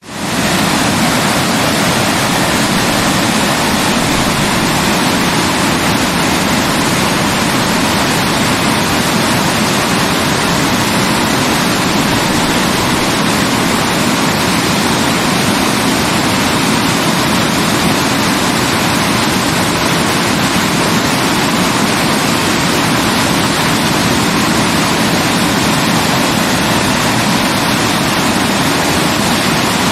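Waterfall: a steady, even rush of falling water, fading in quickly at the start.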